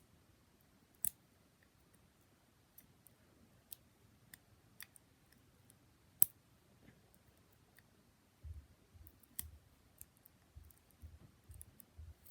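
Scattered sharp plastic clicks and taps from handling small putty containers, loudest about a second in and again around six seconds, then soft low thuds with more quick clicks over the last few seconds.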